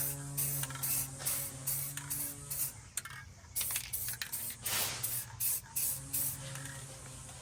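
Aerosol spray-paint can spraying in short spurts, about two a second, with a brief pause about three seconds in.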